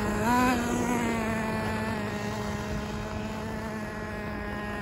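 Traxxas T-Maxx 2.5 nitro RC truck's small two-stroke glow engine running at a steady buzz. It revs up briefly about half a second in, then grows fainter as the truck drives away.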